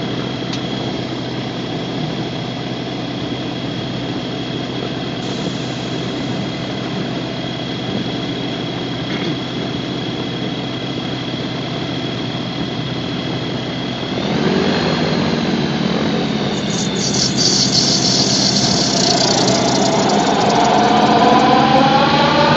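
Gyrocopter engine running steadily at low power. About two-thirds of the way through its note steps up and grows louder, and near the end it revs up with a rising pitch.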